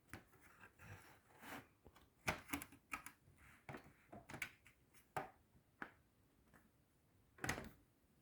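Plastic bottom cover of a Lenovo IdeaPad 110 laptop being pried off, its clips snapping loose in a string of irregular sharp clicks, a louder snap about two seconds in and another near the end.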